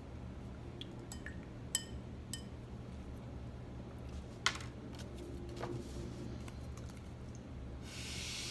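A few light clicks and taps of painting tools being handled, the sharpest about four and a half seconds in. Near the end comes a breathy hiss of air blown through a drinking straw onto wet watercolour paint.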